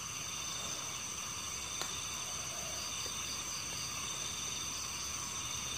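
Steady chorus of night insects, crickets or similar, a continuous high-pitched shrill made of several unbroken tones over a low hiss. A faint single tick about two seconds in.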